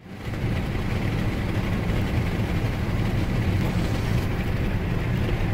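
Engine and tyre noise of a moving vehicle heard from inside its cabin: a steady low rumble while driving along the highway.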